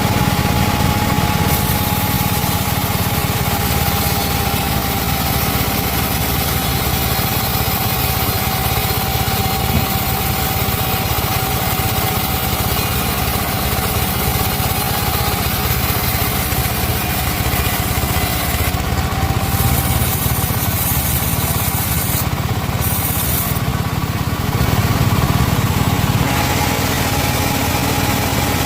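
Chainsaw engine running steadily at high revs, cutting teak wood.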